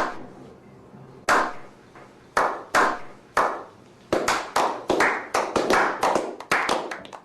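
A series of sharp hand claps with echoing tails, a few widely spaced at first, then quickening to about two or three a second from about four seconds in.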